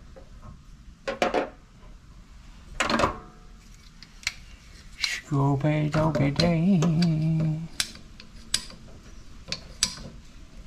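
Hand tools and CPVC pipe fittings clicking and knocking in separate sharp clicks a second or two apart, as a ratchet pipe cutter and fittings are handled at a water heater's pipe connections. About halfway there is a couple of seconds of a low, wavering hum.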